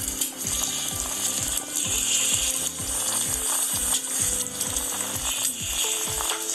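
Wooden masher mashing cooked potatoes, peas and tomatoes in a pan, with repeated strokes against the pan, over background music with a steady beat.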